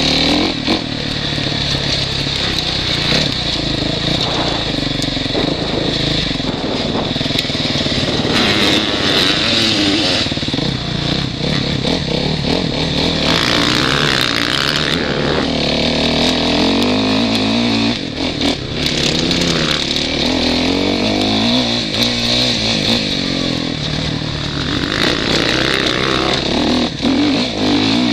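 Suzuki RM-Z450 motocross bike's 449 cc four-stroke single-cylinder engine revving up and down as it is ridden hard round a dirt track, heard from a helmet camera. There are bursts of rushing noise a third of the way in, around the middle, and again near the end.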